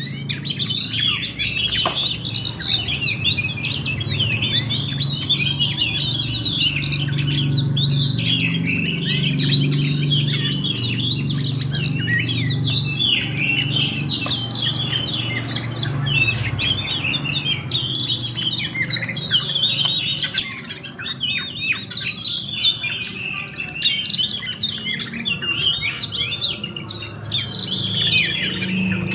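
Oriental magpie-robin (kacer) singing a rapid, unbroken stream of chirps, whistles and harsh notes. This is the rolling, aggressive song bird-keepers call "tarung ngerol". A low hum runs underneath.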